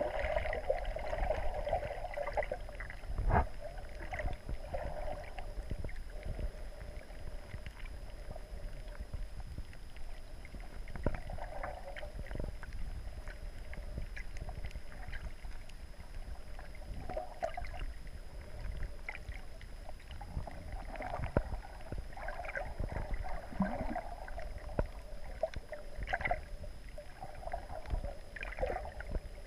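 Muffled underwater ambience heard by a submerged camera: a steady low rumble of water movement that swells and fades, with scattered sharp clicks and knocks, the loudest about three seconds in.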